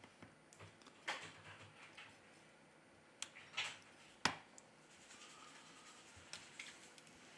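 Faint scrapes and clicks of a plastic opening tool working against the internals of an opened smartphone, with one sharp click about four seconds in.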